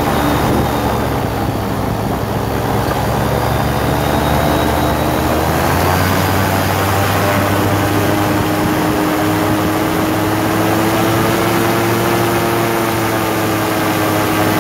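Powered parachute's engine and pusher propeller running steadily, its pitch rising slightly about halfway through and easing a little near the end.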